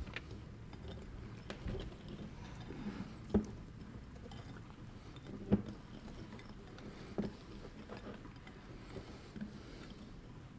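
Egg yolks, sugar and starch being whisked in a bowl: a faint patter with a short knock every second or two.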